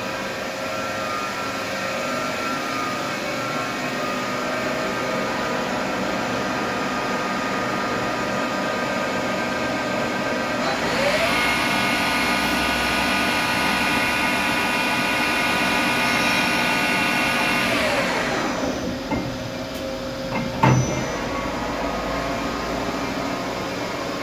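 Doosan Puma 500 CNC lathe running with a steady machine hum. About ten seconds in, its spindle speeds up with a rising whine, runs steadily for about seven seconds, then winds down with a falling whine. A single clunk follows near the end.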